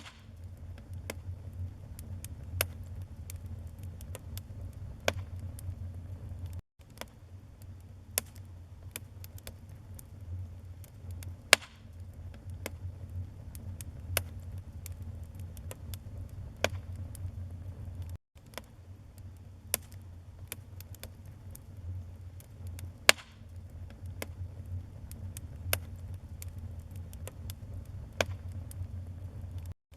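Wood fire crackling in a fireplace: a steady low rumble of burning with frequent sharp pops and snaps from the wood. The two loudest snaps come about a third and three quarters of the way through. The sound briefly cuts out three times.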